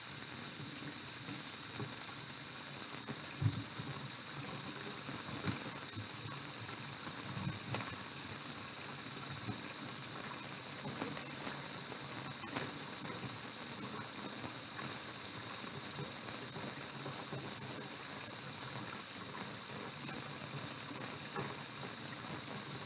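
Steady high hiss, with a few faint, soft knocks scattered through it from food being handled: a whole onion worked into a raw chicken's cavity.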